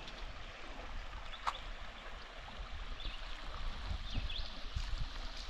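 Riverside ambience: a steady hiss of flowing river water, with a few faint bird chirps and a low rumble.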